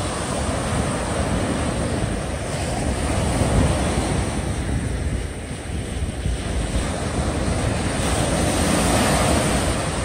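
Small waves breaking and washing up a sandy beach, swelling louder twice, about three and a half seconds in and near the end. Wind buffets the microphone throughout.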